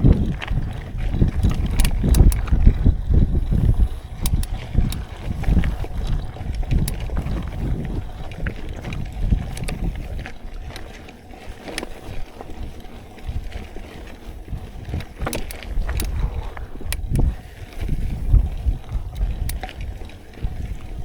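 Wind buffeting the microphone while a mountain bike is ridden along a dirt trail, with scattered clicks and rattles from the bike and the trail surface. The rumble eases for a few seconds around the middle and picks up again.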